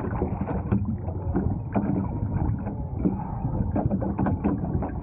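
Seawater sloshing and lapping against a floating jetboard, with irregular small splashes as the rider in the water moves alongside it.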